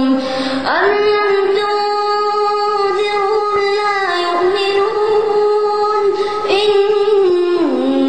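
A boy reciting the Quran in a melodic chant, holding long notes on one steady pitch, sliding up into a new phrase about a second in and dipping down near the end.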